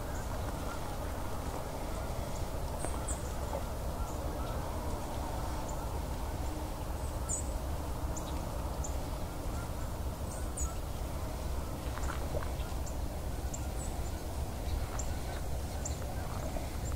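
Waterfowl calling along the river, with short high bird chirps scattered throughout, over a steady low rumble.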